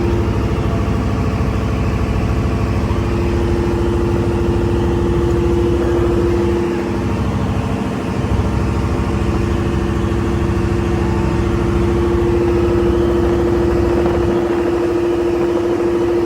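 A boat's engine running steadily with a strong droning hum. It eases briefly about halfway through, then picks up again.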